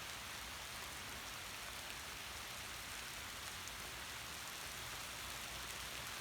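Steady rain falling, a constant even patter of many drops.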